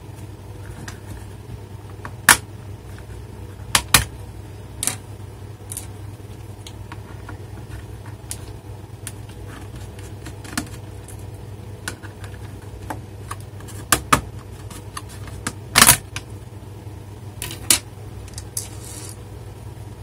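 Plastic access covers on a laptop's underside being prised off and lifted out: irregular sharp plastic clicks and knocks, the loudest about sixteen seconds in, over a steady low hum.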